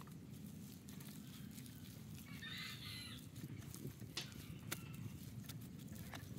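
A chicken gives one short call about two and a half seconds in, over a faint low rumble and a few light clicks.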